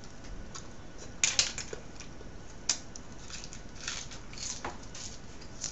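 Close-up eating sounds: short wet clicks and smacks of chewing and of fingers handling food at the mouth. There is a louder cluster about a second in, a single sharp click near the middle, and a few more smacks near the end.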